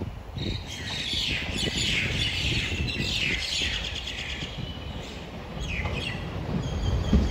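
Small birds chirping in a run of quick, falling calls over a low rumble of wind on the microphone.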